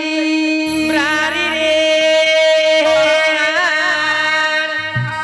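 Rajasthani folk music: a steady held drone note with a wavering, ornamented melody line over it. Drum strokes come in near the end.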